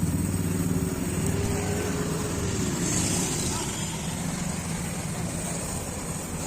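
A motor vehicle engine running close by, with a slight rise and fall in pitch, easing off over a few seconds amid general street traffic noise.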